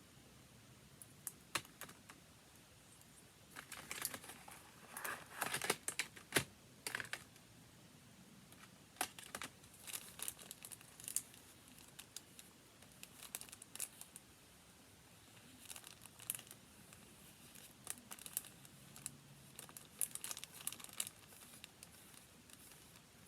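Paper being handled: irregular crinkling and rustling with scattered light clicks and taps, busiest in a run of louder rustles about four to seven seconds in.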